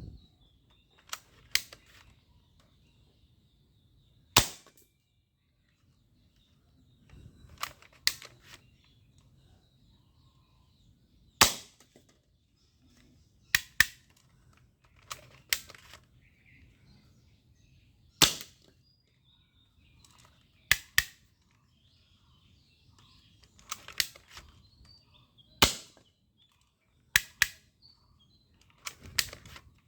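Toy air rifle firing single shots: about twenty sharp cracks at irregular intervals of one to three seconds, several coming in quick pairs.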